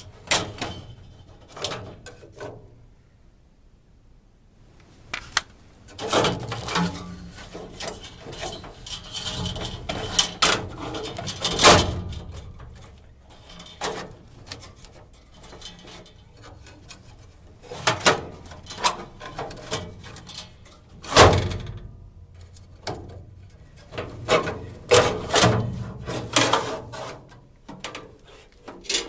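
Furnace filter being bent and worked out of its slot: irregular scraping, rustling and knocking against the furnace housing, with two sharp knocks, one a little before halfway and one about two-thirds through.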